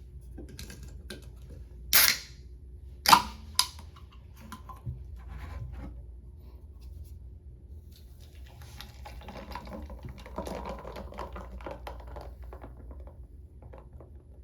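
Light clicks and taps of objects being handled, with two loud sharp knocks about two and three seconds in and a smaller one just after.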